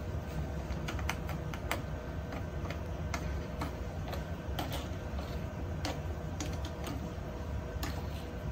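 Irregular light clicks and taps of hands handling and seating a 3D printer's bed plate, over a steady low hum.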